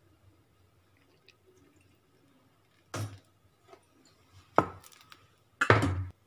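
A few short knocks and clunks of a plastic soda bottle and a drinking glass being handled on a stone countertop, the loudest near the end.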